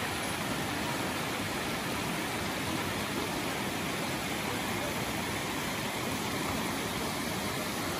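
Small mountain stream rushing over rocks, a steady, even rush of water.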